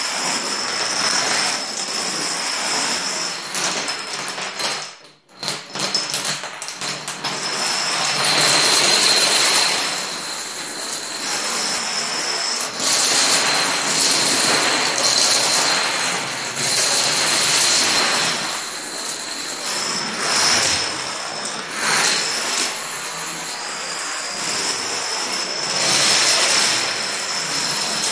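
Plastic toy dominoes toppling in long chains and tumbling onto a wooden floor: a dense, continuous clatter of many small plastic pieces. The sound drops out briefly about five seconds in.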